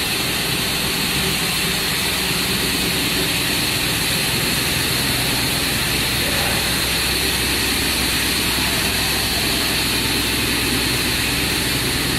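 Cable pair-twisting machine with back-twist running at speed, about 3,800 twists a minute: a loud, steady high whirring hiss with a faint low hum underneath.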